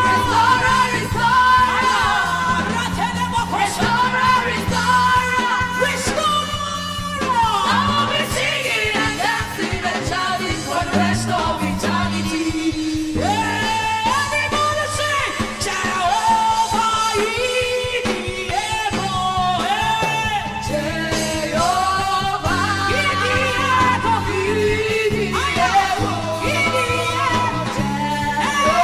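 A woman singing a gospel song over live band accompaniment with a steady bass line, her voice sliding and holding notes.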